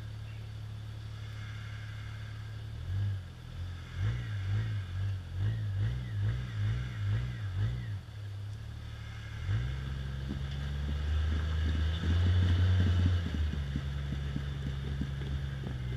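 Rock buggy's engine idling, then blipped up and down about twice a second for several seconds, then held at higher revs as it works up the rock ledge, loudest a little past the middle.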